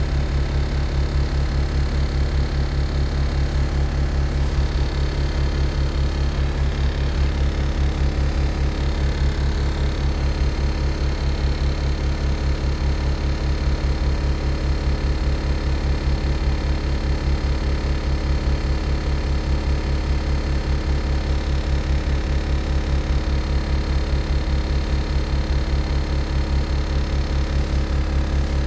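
Optare Solo SR single-deck bus's diesel engine idling steadily, heard from inside the bus.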